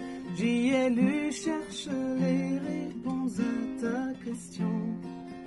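A woman singing a slow song with instrumental accompaniment.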